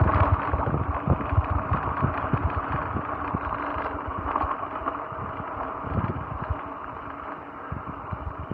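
Full-suspension mountain bike riding down a dirt trail: tyres rumbling on the ground with many short bumps and rattles from the bike, under a steady rush of air on the microphone. It fades slowly as the bike slows.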